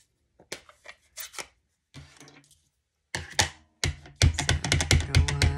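A rubber stamp on a clear acrylic block tapped quickly and repeatedly on a Stampin' Up! ink pad to ink it, a fast run of sharp taps in the last second and a half or so, after a few lighter clicks and rubs of plastic.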